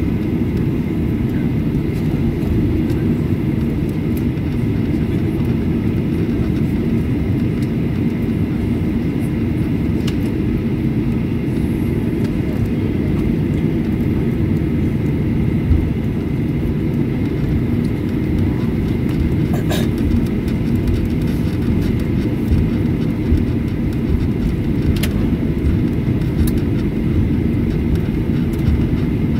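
Cabin noise inside a Boeing 737-800 taxiing: a steady low rumble from the jet engines at taxi power and the rolling airframe, with a faint steady whine and two faint clicks about two-thirds and five-sixths of the way through.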